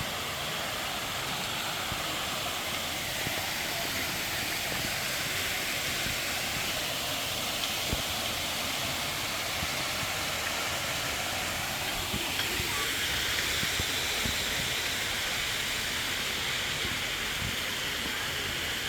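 Steady hissing, rushing noise that holds an even level throughout, with no distinct events.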